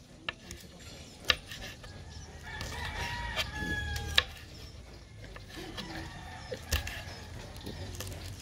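Chef's knife slicing green beans on a wooden cutting board: a few sharp knocks of the blade on the board, roughly every two and a half seconds. A rooster crows in the background partway through.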